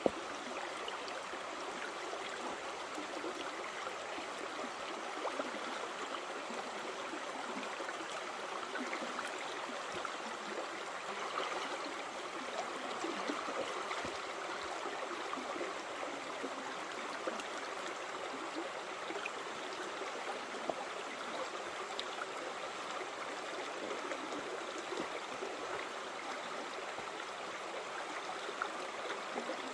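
Steady rush of flowing water from a forest stream or falls, an even sound without pauses.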